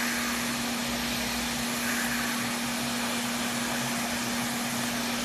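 Hot air rework station blowing a steady hiss of heated air, with a constant low hum under it.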